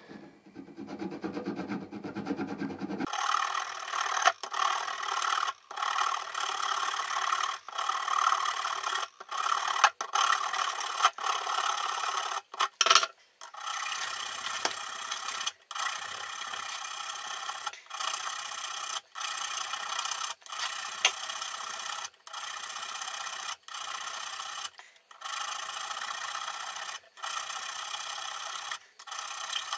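Hand file rasping across a potentiometer's steel shaft held in a bench vise, cutting a flat with steady back-and-forth strokes about one a second. One sharper knock about halfway through.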